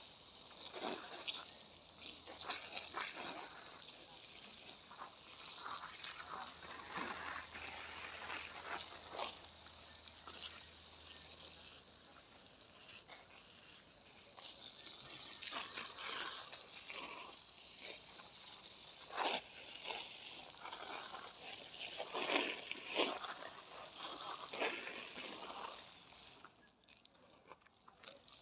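Water from a garden hose spraying and splattering onto marigold plants, coming in irregular surges.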